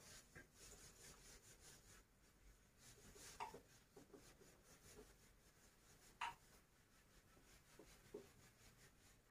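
Faint rubbing of a handheld eraser wiping a whiteboard clean, in short strokes, with two brief louder scuffs about three and six seconds in.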